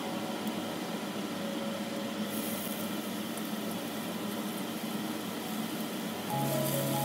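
Food cooking in a pan on the stove: a steady hissing, bubbling noise that turns brighter about two seconds in.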